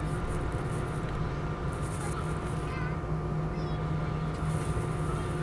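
Steady cabin noise inside an Airbus A319 taxiing with its jet engines at idle: an even hum with a low drone and a couple of higher held whining tones.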